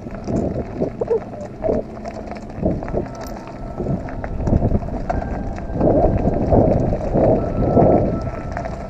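Mountain bike rolling over a loose gravel fire road: tyres crunching on the stones with the bike's chain and frame rattling over the bumps, plus wind on the action camera's microphone. It gets louder and busier about six seconds in as the speed picks up.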